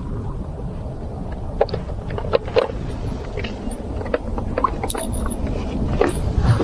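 Winged surface crawler lure paddling across the water: irregular short plops and splashes over a steady low rumble.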